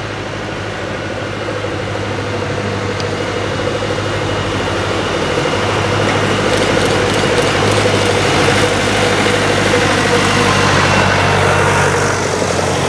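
Vintage farm tractor engines running steadily as the tractors drive along the lane towards the listener, growing louder over the first eight seconds or so.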